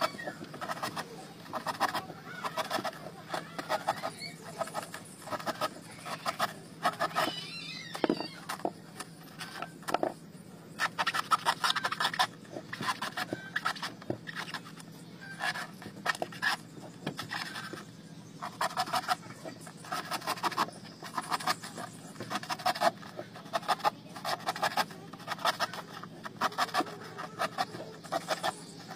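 A small knife carving and scraping through the fibrous husk of a young coconut, each stroke a short crunchy rasp, repeated in quick clusters every second or so.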